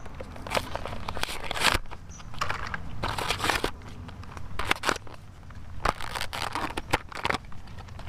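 Plastic blister pack with a cardboard backing being torn and peeled open by hand: irregular crackling of the stiff plastic and short ripping sounds of the card.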